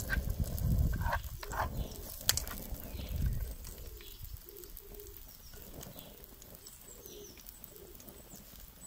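Wind rumbling on the microphone while a black spatula stirs and scrapes chopped onions in a non-stick frying pan, dying away after about three and a half seconds. After that it is quieter, with faint bird calls.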